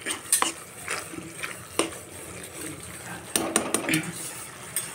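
Metal spoon stirring thick gravy in a kadhai, with scattered clinks and scrapes against the pan.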